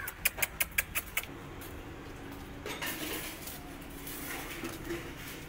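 A quick run of six or seven sharp clinks, about six a second, in the first second or so, followed by faint low noise.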